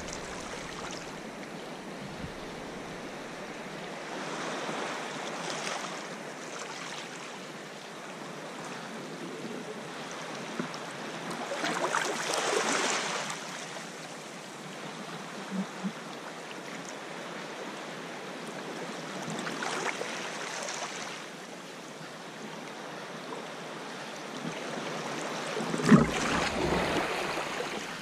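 Sea water sloshing and washing against a rocky cliff base and around a kayak's hull, swelling in surges every six to seven seconds, with a short thump near the end.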